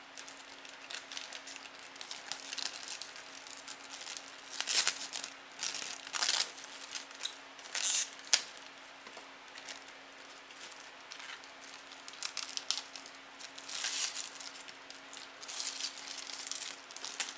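Thin clear plastic bag crinkling and rustling in irregular bursts as it is pulled off a PVC figure. There is one sharp click about eight seconds in.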